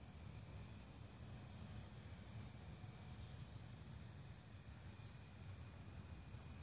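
Faint evening insects chirping: a high chirp repeating about four times a second, joined by a faster, rattling trill for a couple of seconds near the middle, over a low rumble.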